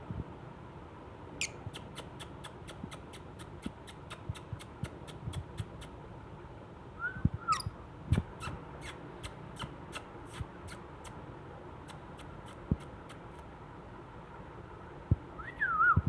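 Small caged pet parrots chirping: a run of rapid, very high ticks, about three a second, broken by a few short squeaks that glide up and down, one about a second and a half in, one around seven seconds, and another near the end.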